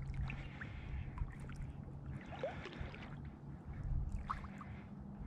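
Small wind-driven waves lapping and gurgling around flooded brush and reeds at the lake edge, with wind rumbling on the microphone.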